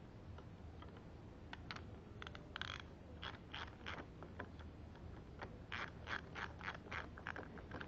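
Ratchet wrench clicking in short strokes as the camshaft bearing cap bolts on a Toyota 4ZZ cylinder head are run down: a few scattered clicks from about a second and a half in, then a quicker run of about three strokes a second in the second half.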